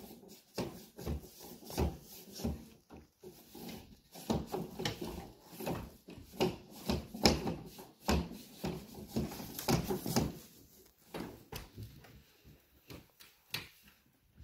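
Sheathed electrical cable being drawn up through a hole in a wall, rubbing and knocking irregularly against the edges of the opening as it is pulled.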